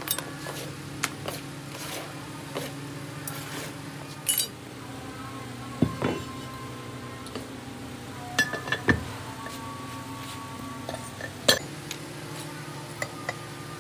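Scattered metal clinks and knocks from a steel moulding flask and a metal brake-disc pattern being handled and set in sand for casting, over a steady low hum.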